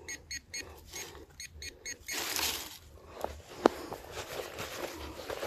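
Metal detector sounding a rapid series of short beeps, about four a second, over a buried metal target, stopping about two seconds in. Then rustling and scraping in the soil as the target is dug out, with one sharp click.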